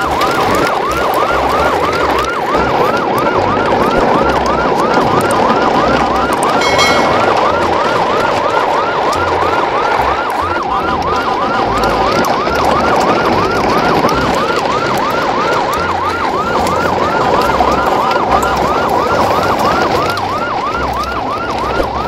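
Electronic toy siren wailing fast and evenly, about three rising-and-falling cycles a second, over a busy background, with a brief high chime about seven seconds in.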